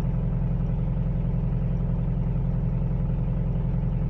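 Mitsubishi L200 engine idling cold with a steady, even knock. The knock comes every morning on starting and goes away as the engine warms.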